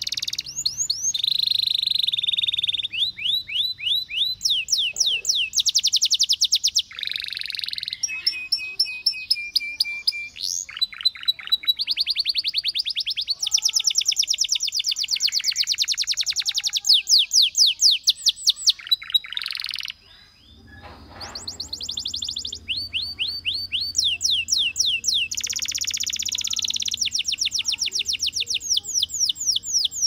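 Domestic canary singing a long song of rapid trills, phrase after phrase of quickly repeated high notes at changing speeds, with a short break about two-thirds through.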